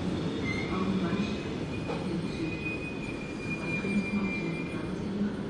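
Train running on the rails with a steady low rumble and a thin, high metallic squeal. The squeal starts about half a second in, rises slightly and holds for about four and a half seconds.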